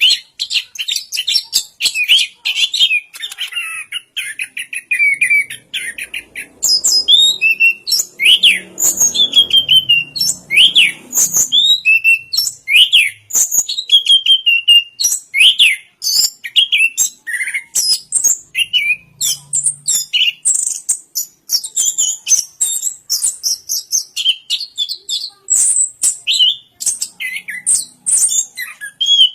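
Chestnut-capped thrush (anis kembang) singing a loud, continuous, varied song: a fast run of chattering notes for the first several seconds, then a quick string of short sharp whistles and brief trills.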